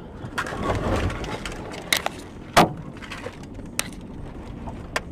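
A rumbling rush with a series of sharp knocks and bangs: a pair about two seconds in, the loudest about two and a half seconds in, and single knocks near four seconds and near the end.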